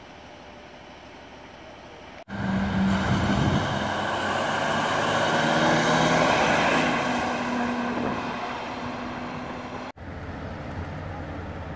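A tow truck driving past: its engine and tyres swell to a peak and then fade as it goes by. Quieter steady traffic noise comes before and after.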